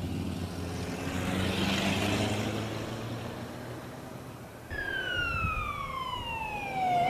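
A rushing noise swells and fades over the first few seconds. After a sudden cut, an emergency vehicle's siren wails in, falling steadily in pitch and starting to rise again right at the end.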